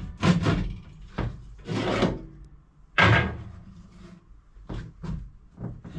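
Irregular knocks and clunks of hard objects being handled and set down while working on an old stove, about seven in all, the loudest thump about three seconds in.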